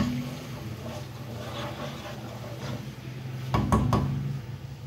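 A spoon stirring watery curry in a metal pan, then two sharp knocks about three and a half seconds in as the spoon strikes the pan, over a steady low hum.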